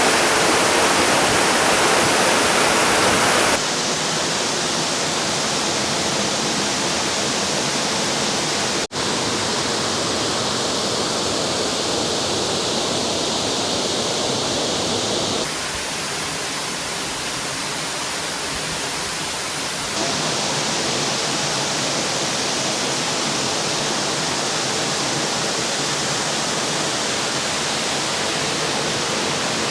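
Tuirihiau waterfall: a steady, tremendous rush of falling water, its level and tone changing abruptly a few times, with a brief dropout about nine seconds in.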